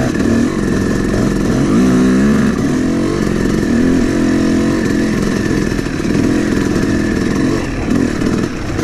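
Yamaha YZ250 two-stroke dirt bike engine running hard on board, its pitch climbing and dropping again and again with throttle and gear changes. The engine is freshly rebuilt, top and bottom end.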